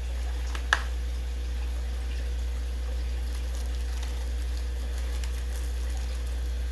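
Steady low background hum, with one sharp click about a second in as the small cardboard advent-calendar box is handled.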